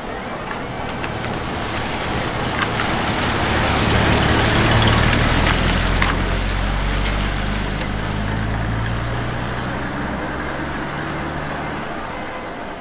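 A 1947 Dodge WC half-ton pickup's flathead six-cylinder engine running as the truck drives past on a wet road, with tyre noise. The sound builds to its loudest about four to five seconds in as the truck passes, then fades as it drives away.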